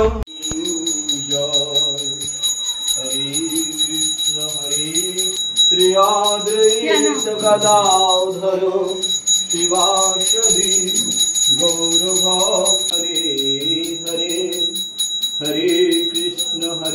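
A brass puja hand bell rung continuously in a fast, even jingle, over a voice singing a slow devotional chant with long held notes.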